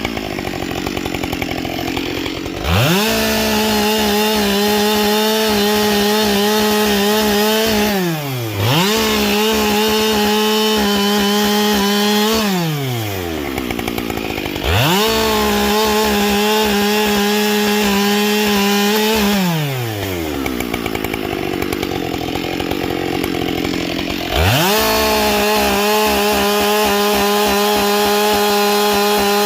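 Husqvarna 572XP two-stroke chainsaw with a carbide chain on a 20-inch bar, throttled up to a high steady pitch four times and held there while cutting wood, dropping back toward idle between cuts.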